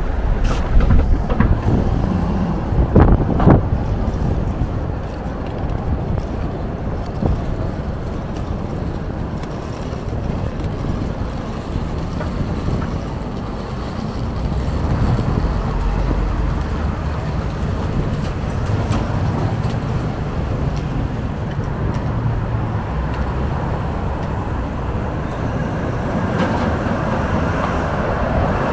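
City street traffic: a steady rumble of passing cars and trucks, with a few sharp knocks in the first few seconds.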